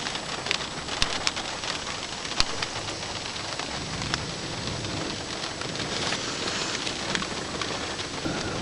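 Steady rain hiss with scattered sharp ticks of individual drops landing close by.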